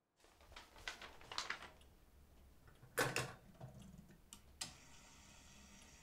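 Clicks and knocks of an old candlestick telephone being handled as the earpiece is lifted and the set worked, the loudest knock about three seconds in, over a low steady room hum.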